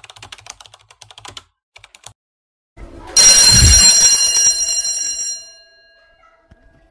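Keyboard typing clicks that stop about a second and a half in. About three seconds in, a loud bell-like ring starts with a low thud, its many tones fading away over about two seconds.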